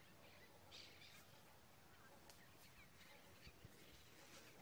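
Near silence: faint outdoor background with a few soft, scattered ticks and rustles.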